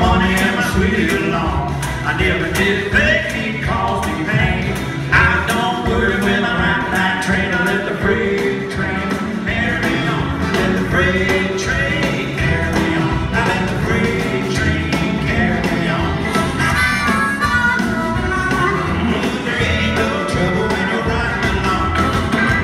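Live country band playing an up-tempo old-time song, fiddle, upright bass, electric guitar and drums, with a harmonica wailing over the top.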